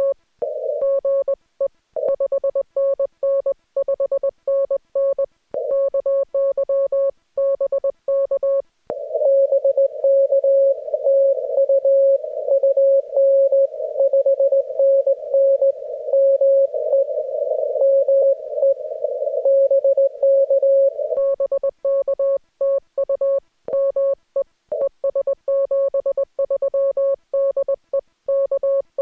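Morse code (CW) heard from an amateur radio transceiver as a single keyed tone of one steady pitch. For about nine seconds the tone is clean and crisply keyed, typical of the operator's own sidetone while sending. Then for about twelve seconds the other station's reply comes in at the same pitch amid the hiss of narrow-filtered band noise, and near the end the clean keyed tone returns.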